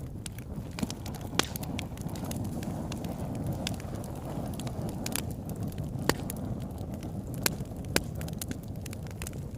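Fire crackling: a steady low rumble with sharp pops at irregular intervals, the loudest near 1.5, 6, 7.5 and 8 seconds in.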